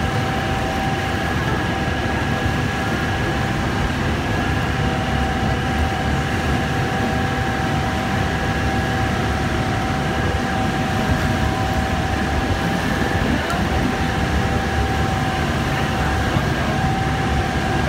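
A tour boat's engine running steadily with a constant whine, over the continuous rushing of the Rhine Falls' huge waterfall and the churning river.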